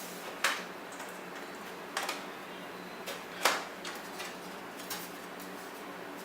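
Sharp clicks and clacks as the aluminium bottom case of a Mid 2009 MacBook Pro is lifted off and handled. There are about four knocks, spaced a second or more apart, and the loudest comes about three and a half seconds in.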